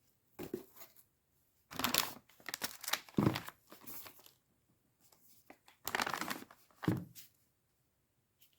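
Packaging being unwrapped by hand, crinkling and tearing in three bursts, the longest about two seconds in.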